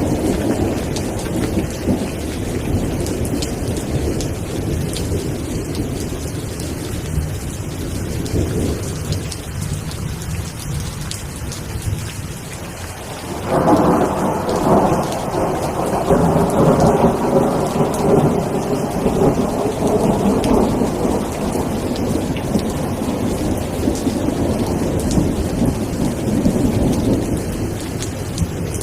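Steady rain with low rumbling thunder. A louder roll of thunder breaks in suddenly about halfway and fades slowly over several seconds.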